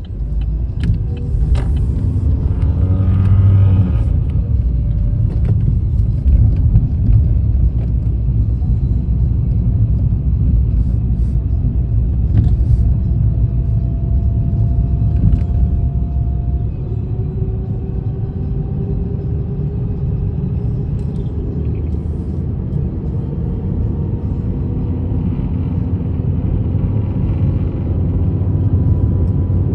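Car driving on the road: a steady low rumble of engine and road noise, with a faint whine that rises slowly in pitch as the car picks up speed.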